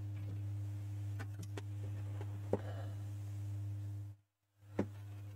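Steady low electrical hum, with a few faint clicks and one sharper tap about two and a half seconds in. The sound cuts out completely for about half a second near the end.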